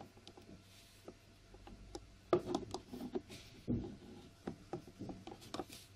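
A small speaker driver being pried and worked loose from a JBL Charge 3's plastic housing, with irregular clicks, knocks and scraping of plastic. The loudest knocks come a little over two seconds in and again near the middle.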